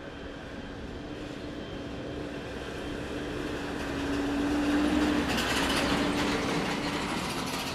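Boeing 777-300ER's GE90 engines at take-off power, passing by: a jet roar that builds to a peak about five seconds in and then begins to fade, with a crackle after the peak.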